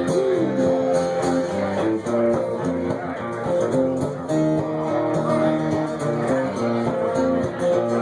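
Live guitar music, strummed and picked, playing an instrumental passage without singing.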